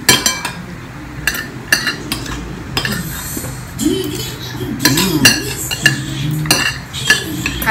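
Metal forks and spoons clinking and scraping against ceramic plates while people eat, in irregular sharp clicks that ring briefly.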